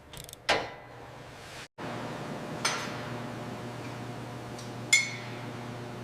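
A few light metallic clinks and taps on metal parts, with a sharp ringing ping near the end. A steady low hum runs underneath after a brief dropout.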